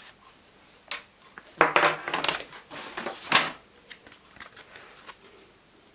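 Unboxing items and their packaging being handled: a knock about a second in, then about two seconds of loud rustling and crinkling, followed by a few lighter clicks and taps.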